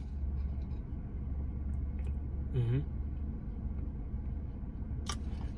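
Steady low hum of a car heard from inside the cabin. About two and a half seconds in there is one short closed-mouth hum from the man sipping through the straw, and a couple of faint clicks.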